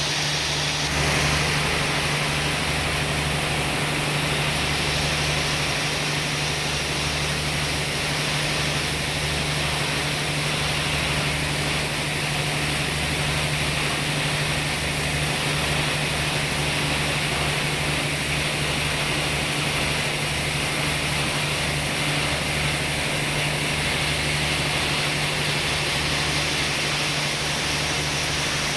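Sawmill running steadily: a constant engine hum under an even hiss, with no pauses or changes in pitch.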